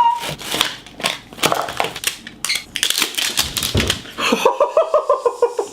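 Rapid clicks and crinkling of packaging being handled while a new iPhone 7 is unboxed. About four seconds in, a quick, pitched, voice-like chatter starts.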